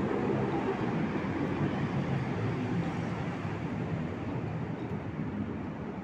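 Steady rumble of wind and road noise while riding an electric scooter, easing a little near the end.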